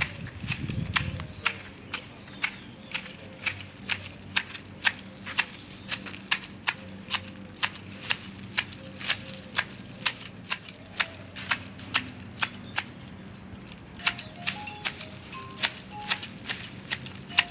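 Garden shears snipping through foliage in a steady rhythm, about two sharp cuts a second, while a tree is trimmed and shaped.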